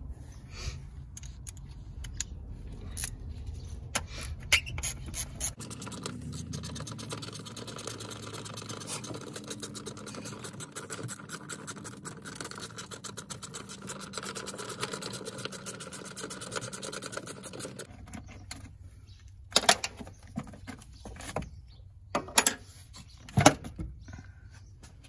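Socket ratchet wrench clicking rapidly as a nut at the car battery is loosened, followed by a few sharp knocks as the battery is lifted out of its tray.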